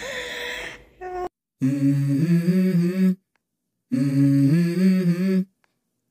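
A person humming a short rising 'mm-mm-mmm' phrase, repeated three times identically with sudden cuts and dead silence between: an edited, looped hum.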